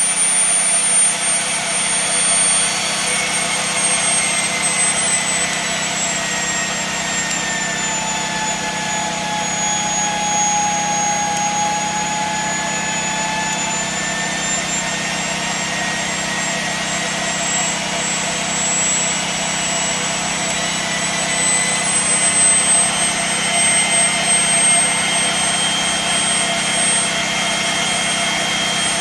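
High-speed Tesla turbine spinning a three-phase generator: a high-pitched whine over a steady rushing hiss. The pitch sinks over the first dozen seconds as the generator is switched onto an electrical load and the rotor slows, then climbs back most of the way as the load eases.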